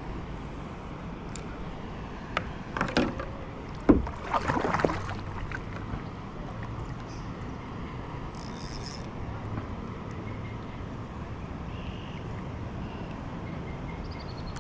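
Handling noises aboard a fishing kayak over a low, steady background: about a second of rustling and clattering, then a sharp knock about four seconds in, followed by another second of rustle and clatter.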